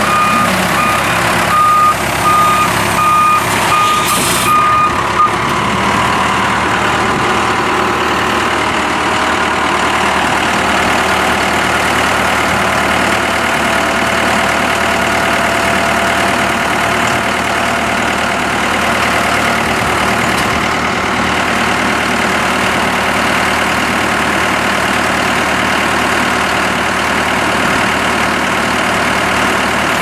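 1991 Case 590 Construction King backhoe: its reversing alarm beeps steadily for the first four seconds or so, then stops, leaving the diesel engine running steadily, with a faint whine slowly rising in pitch partway through.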